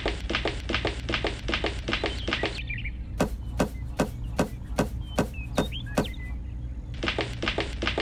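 Quick, evenly spaced tapping, about five taps a second, over a steady low hum. In the middle it changes to sharper taps about two or three a second, then returns to the quicker tapping near the end.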